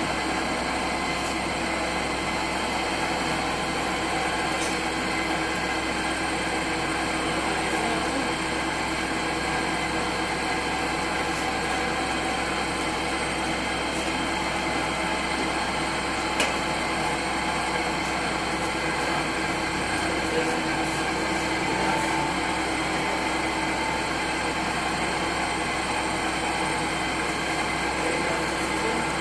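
Commercial fork-type dough mixer running steadily, its motor and drive making a continuous mechanical drone with several steady whining tones, with one brief click about halfway through.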